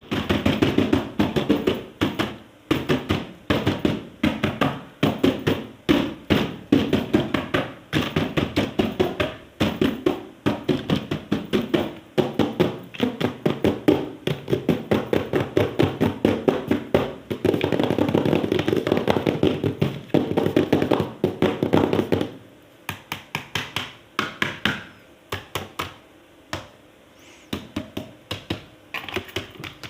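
Rapid tapping and clicking, several short strokes a second. It thins out and grows quieter after about 22 seconds.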